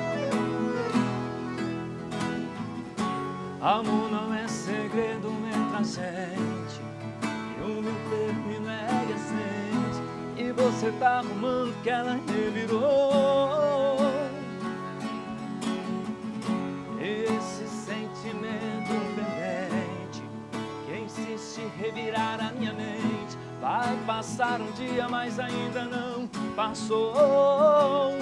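Two acoustic guitars, one nylon-string and one steel-string, strumming and picking together with a Dallapè piano accordion in an instrumental song introduction.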